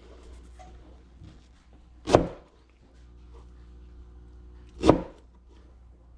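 Cleaver chopping through pineapple onto a plastic cutting board: two sharp chops about three seconds apart.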